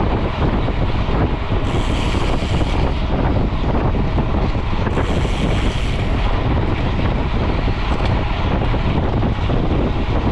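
Steady wind rushing over a GoPro action camera's microphone as a mountain bike is ridden at speed on the road, a dense low rumble with no break.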